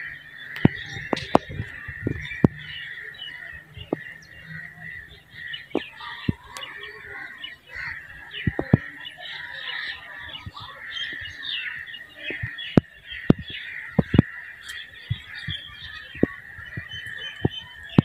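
Birds chirping over a steady high-pitched drone, with sharp clicks every second or two.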